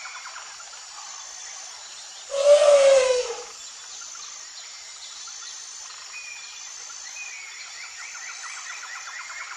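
An elephant trumpets once, a loud, harsh, pitched blare about a second long that drops slightly in pitch at its end, over a steady chorus of trilling insects and frogs.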